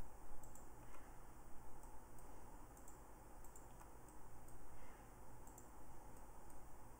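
Irregular clicks of a computer mouse and keyboard keys as drawing objects are selected and deleted, over a steady low hum.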